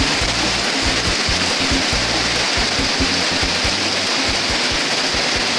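Heavy downpour: a loud, steady hiss of rain pouring onto a flooded street, with irregular low thumps underneath.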